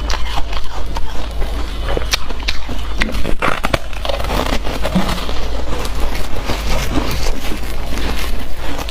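Close-miked chewing and crunching of soft slushy ice, a dense run of irregular wet crunches and crackles.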